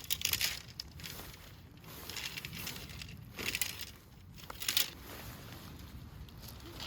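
Irregular crunching and rustling in several short bursts, the loudest right at the start, over a steady low rumble of wind on the microphone.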